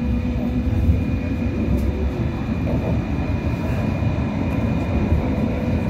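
Hong Kong Light Rail Phase I light rail car running along the track, heard from inside the car: a steady low rumble with a faint steady high tone over it.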